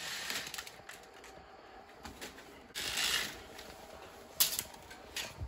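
Vertical window blinds being turned shut, the slats rattling and clacking against each other, with a sharp clack a little over four seconds in.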